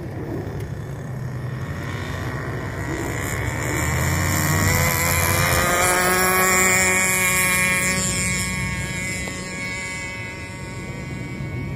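Irvine 46 glow engine of a radio-control Sabre 56 model airplane running hard on its takeoff run. Its whine climbs in pitch as the model speeds down the runway and is loudest about six seconds in, then fades as the plane climbs away.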